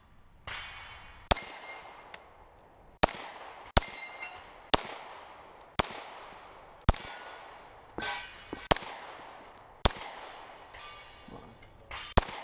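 Pistol shots fired at an irregular pace, about nine in all, with a pause of a second or two between some of them. Several shots are followed by the high ring of struck steel targets.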